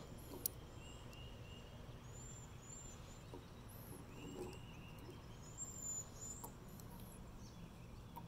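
Small birds chirping, short calls repeating in quick runs of three, with higher calls over them. One sharp click about half a second in, and a few soft knocks as the plastic spinner parts are handled.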